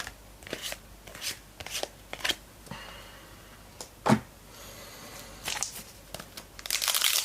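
Trading cards being handled, slid and flipped against each other in short swishes, with one louder knock about four seconds in. Near the end a card pack wrapper starts crinkling as the next pack is opened.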